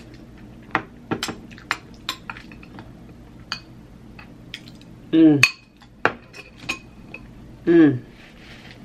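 Cutlery clinking against a plate or dish while eating, a string of sharp separate clinks. Two short voiced sounds from the eater, falling in pitch, come about five seconds in and near the end.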